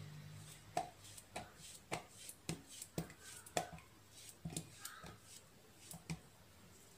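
Knife cutting a slice of ripe papaya into small pieces over a steel mixer-grinder jar, as the pieces drop into it: faint, irregular clicks and taps, roughly one or two a second.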